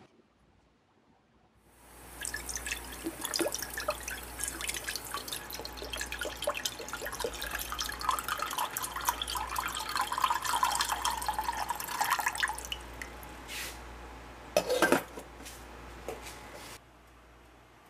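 Broth pouring from a carton into a stainless steel saucepan: liquid splashing steadily into the pot, starting about two seconds in and lasting about ten seconds. About fifteen seconds in, a short loud knock as a glass lid is set on the pot.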